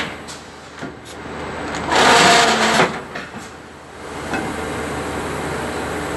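Large-pouch powder filling machine running: a loud noisy burst about two seconds in lasts just under a second, then the machine settles into a steady, even running sound.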